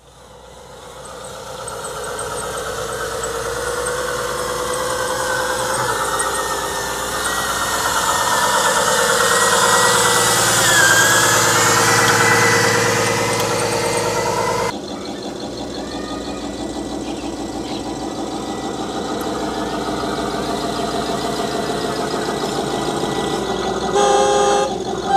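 Truck sounds: an engine running with long horn notes over it, building up over the first couple of seconds and loudest around the middle. The sound changes abruptly about fifteen seconds in, and short horn toots come near the end.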